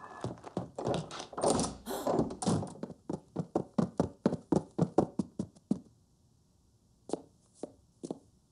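Footsteps hurrying down a staircase: a quick run of thuds, settling into about three steps a second, then three separate footfalls near the end.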